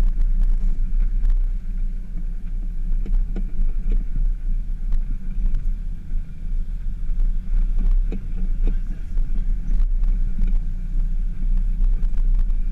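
Jeep Wrangler JK driving over sand, its engine and tyres making a steady low rumble, with a few short knocks as the vehicle goes over bumps.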